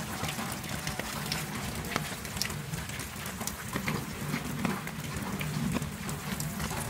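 Steady rain pattering, with many small drops ticking at random.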